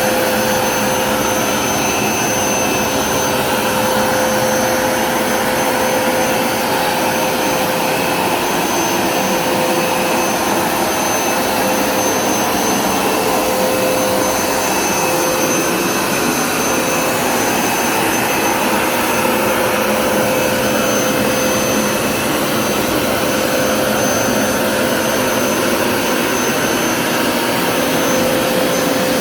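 Hoover Smartwash Pet Complete carpet cleaner running steadily, its suction motor giving a loud, constant whine.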